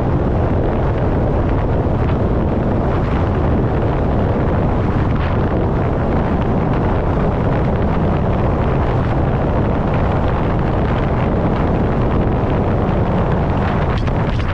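Steady low rumble of harvest machinery running, with wind buffeting the microphone. A few short rustles or clicks come near the end.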